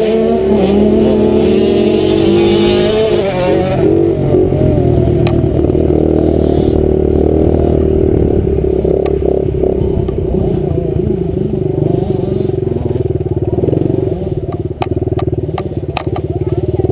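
65cc two-stroke dirt bike engine being ridden, revving up and down for the first few seconds, then running lower and steadier. Several sharp clatters come near the end.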